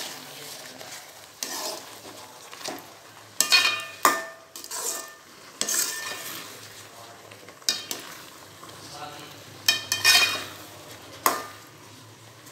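A perforated steel ladle stirring and scraping thick, cooked rava kichadi in an aluminium kadai, with irregular scrapes and a few sharp clinks of the ladle against the pan. The ghee has just been stirred through the finished dish.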